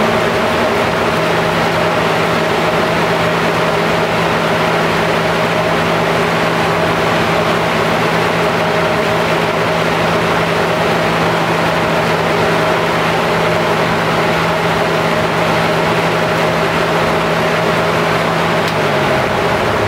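Eagle Industries Max 20 industrial ventilation fan running at full speed, very loud: a steady rush of air over a constant motor hum, with the hum sliding down a little in pitch near the end. Its split-phase electric motor is starting and running normally, the fan in working condition.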